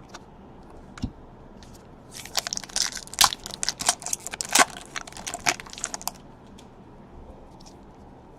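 Plastic or foil trading card packaging being handled and crinkled, a quick run of crackles from about two to six seconds in.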